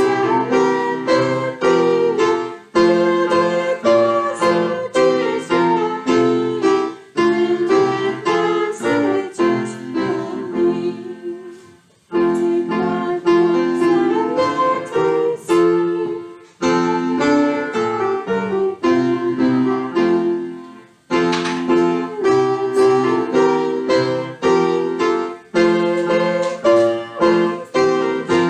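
Piano playing a hymn accompaniment in chorded phrases, with a brief break between each line of the hymn.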